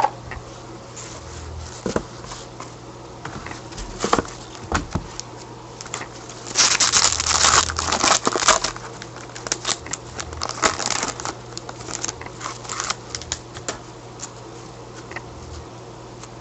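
Hockey card pack wrappers crinkling and cards being handled, with a denser spell of crinkling about seven seconds in. A steady low hum lies underneath.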